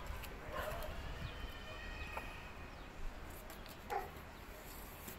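Dogs barking faintly and whining, with soft rustles and clicks of paper being folded by hand.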